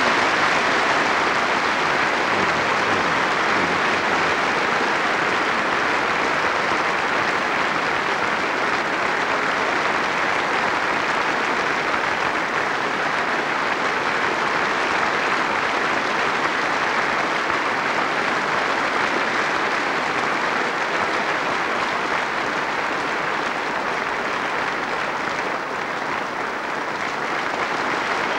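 A large audience applauding, a steady sustained clapping that eases slightly a few seconds before the end and then picks up again.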